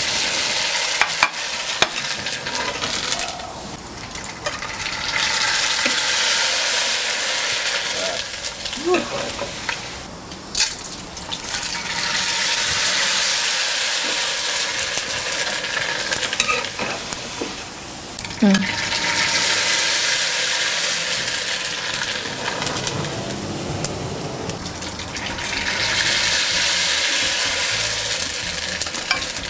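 Rice noodles deep-frying in hot oil in a nonstick pot: a steady sizzling hiss of bubbling oil that swells and eases several times, with a few light clicks.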